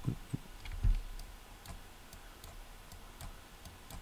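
Faint, scattered clicks of a computer mouse and keyboard, with a couple of soft low thumps in the first second.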